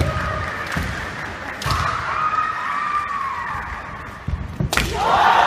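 Kendo players' long, drawn-out kiai shouts, with low thuds of bare feet stamping on a wooden floor. About 4.7 s in, a sharp crack of a bamboo shinai striking the opponent's men (head protector) in a jumping men strike, followed at once by a louder, rising kiai.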